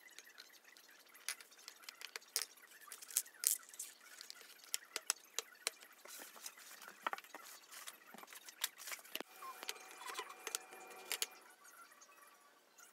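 Irregular small clicks, taps and knocks from handling flat-pack cabinet parts: panels, wooden dowels, screws and other hardware being picked up, set down and fitted.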